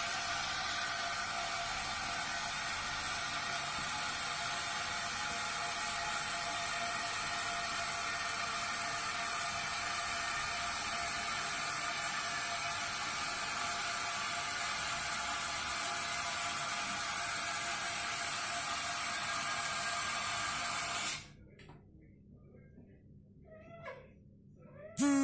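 Toilet water running with a steady hiss that stops abruptly about three quarters of the way in, followed by a faint cat meow near the end.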